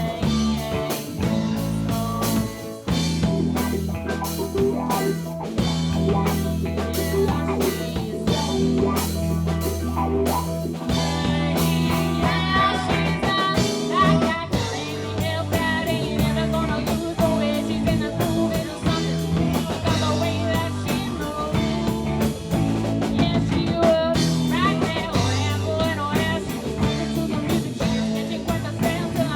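A band playing an original blues-rock song, with drum kit, bass and electric guitar going steadily throughout.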